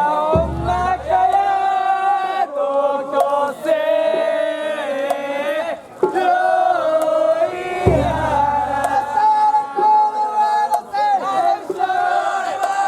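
A group of voices singing a festival chant together in long, held phrases. Two deep booms sound about seven and a half seconds apart, the first near the start and the second about eight seconds in.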